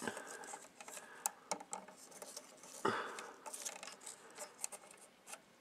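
Fingers rubbing and tugging at wires and cloth tape inside a radio chassis: light scratching and rustling with many small clicks, and one louder rustle about three seconds in.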